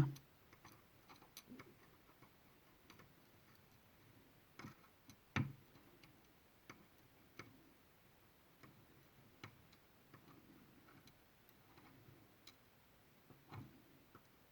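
Faint, irregular clicks and taps of small lock key pins and master wafers being moved about in a pinning tray, with the loudest tap about five seconds in.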